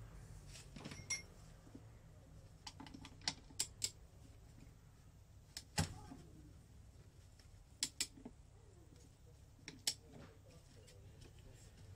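Scattered sharp metal clicks and clinks, about a dozen, from a long socket wrench being fitted and worked on a nut on the engine's crankcase, the loudest about six seconds in.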